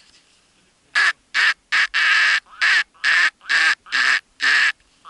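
Mallard quacking: a run of about nine loud, evenly spaced quacks over roughly four seconds, starting about a second in.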